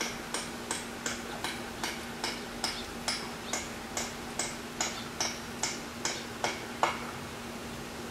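A fast, regular ticking of about two to three sharp ticks a second that stops about seven seconds in, over a steady electric-fan hum.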